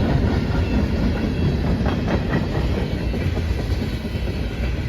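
Freight cars of a long CSX freight train rolling past, steel wheels clattering over the rail joints over a steady low rumble, with a few sharper clatters about two seconds in.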